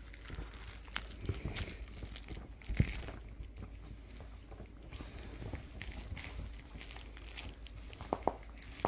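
Dachshunds chewing and mouthing new plush toys on a couch: irregular crinkling and rustling, with a louder thump about three seconds in and two short sharp sounds near the end.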